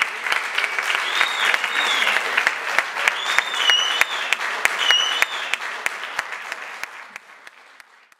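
Audience applauding, with a few cheers rising above the clapping, fading out over the last couple of seconds.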